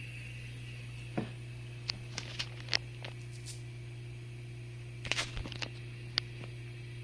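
GE Profile dishwasher running in its final rinse and dry cycle: a steady low hum with a dozen or so scattered sharp ticks and clicks at irregular times.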